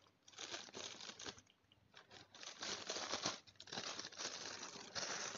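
Black plastic shipping bag crinkling and rustling in irregular bursts as it is handled and cut open with scissors.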